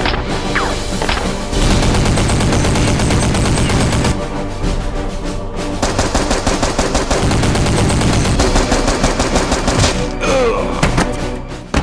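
Rapid, sustained automatic gunfire, shot after shot in quick succession, with background music underneath.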